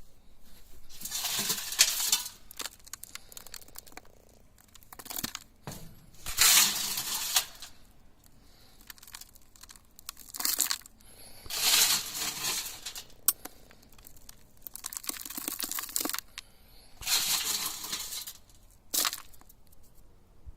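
Sand hissing and rustling in about five separate bursts of a second or two each, with scattered light clicks between them.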